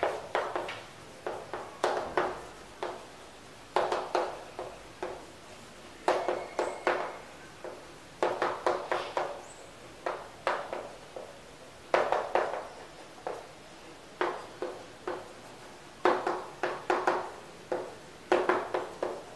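Chalk writing on a chalkboard: quick taps and short scratchy strokes in bursts of a few at a time, with pauses of about a second between bursts.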